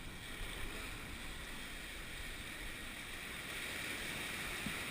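Steady outdoor noise of wind on the microphone and waves washing in at the beach.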